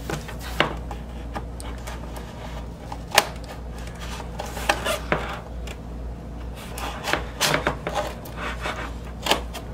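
Cardboard record mailer box being handled on a desk: rubbing and scraping against the desktop with scattered knocks and taps, the sharpest about three seconds in.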